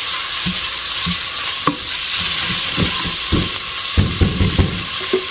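Seasoned ground beef sizzling steadily in a nonstick pot while a spoon stirs and scrapes through it, with a quick run of soft stirring knocks near the end.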